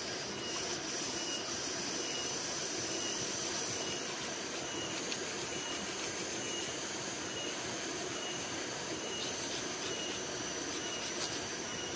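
Serrated steel striker scraping along a magnesium rod in repeated short strokes, shaving off magnesium powder to be used as tinder for lighting a fire.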